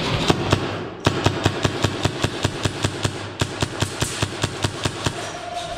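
Airsoft gun firing a rapid string of shots, about five or six a second, after a couple of single shots near the start.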